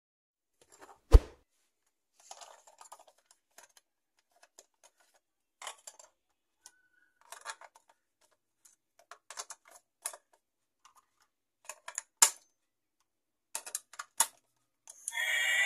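Hard plastic toy train being handled: scattered clicks and clatters of plastic parts. A sharp knock comes about a second in and another near twelve seconds.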